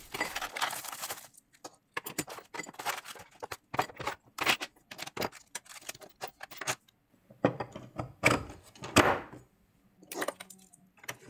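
Parts of a heat-set insert press kit being unpacked from a cardboard box and set down on a wooden table: rustling of packaging in the first second, then irregular clicks and clatter of hard plastic and metal parts being handled and laid down.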